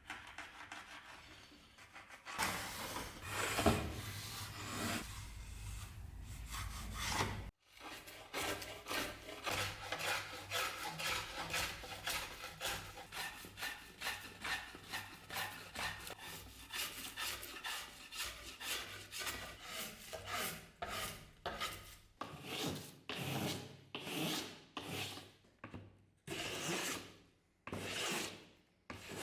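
Hand file or rasp scraping in quick back-and-forth strokes, about three a second, slowing near the end to longer strokes about one a second. For the first few seconds, scraping runs over a low steady hum.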